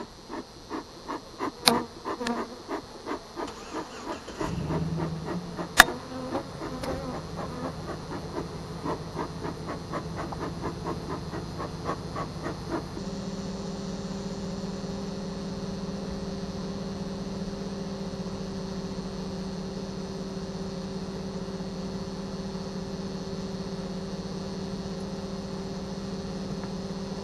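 Bellows bee smoker puffing in a steady rhythm, about two puffs a second, with a couple of sharp clicks, for roughly the first half. A steady low drone comes in about four seconds in and is all that is left from about halfway.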